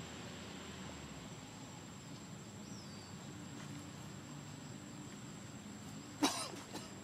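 Faint steady background hiss, broken about six seconds in by one short, sharp cough-like sound, with a smaller one just after.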